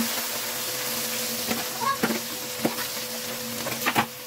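Fish frying in hot oil in an iron kadhai, with a steady sizzle. A metal spatula stirs the pieces and clinks against the pan a few times, twice in quick succession near the end.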